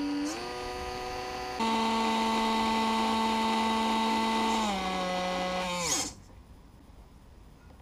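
Small electric kerosene pump motor whining as it primes the fuel line. Its pitch steps up in a few stages as the speed controller is turned up, holds steady, then steps down and stops about six seconds in.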